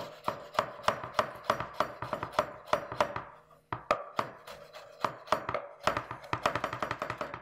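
A steady run of sharp taps, about three to four a second, with no break.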